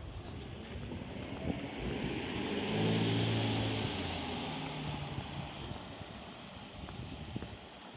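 A motor vehicle passes by: its engine note and tyre hiss swell to a peak about three seconds in, then fade away.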